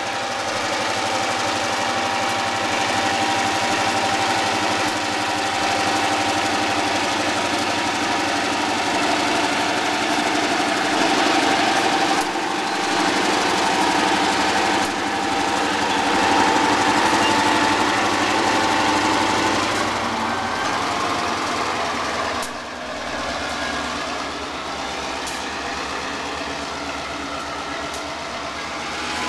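Norfolk Southern diesel-electric locomotive running close by, a steady engine drone with a held whine over it, easing off in loudness about 22 seconds in.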